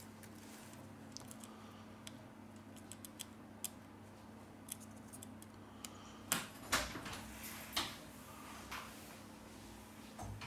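Small clicks and taps of fingers handling a Huawei P10 smartphone's internals, laying down a flex cable and pressing its connectors into place. There are a few louder knocks and rubs about six to eight seconds in, over a faint steady hum.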